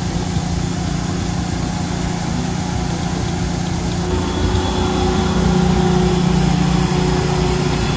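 Small gasoline engine on a mobile detailing equipment trailer running steadily at a constant speed, a little louder from about halfway through.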